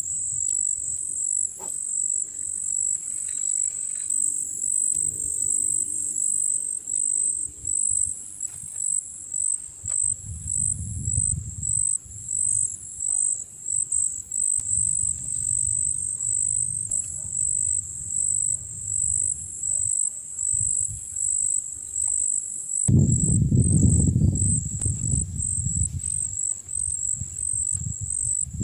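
High-pitched insect chorus, crickets or cicadas, trilling steadily with a pulsing beat. Low rumbles come and go beneath it, the loudest about 23 seconds in.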